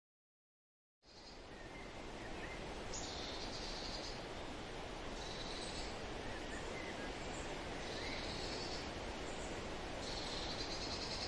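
Forest ambience that comes in after about a second of silence: a steady hiss, with a short high buzzing call repeating about every two seconds and a few faint chirps.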